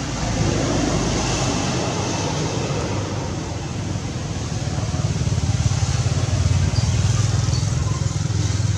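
A motor vehicle engine runs steadily, getting louder about halfway through.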